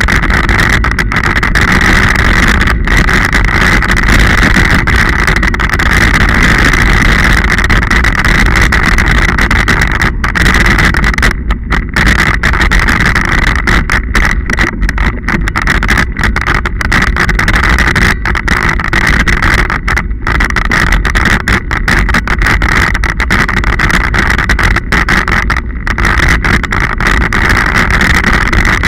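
Scott Genius 40 mountain bike ridden over a muddy dirt and gravel track: a loud, steady rumble of tyres and rattling bike noise mixed with wind on a bike-mounted camera.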